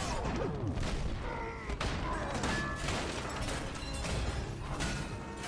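Film fight soundtrack: a run of heavy impacts, crashes and booms, mixed with music.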